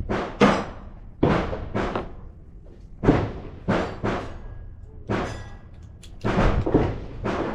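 Handgun gunshots at an outdoor range: about ten sharp reports at uneven intervals, some close together in pairs, each with a short echoing tail.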